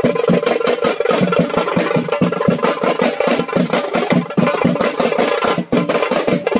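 A band of large drums slung from straps, played in a fast, dense rhythm of strikes, with a brief break a little before the end.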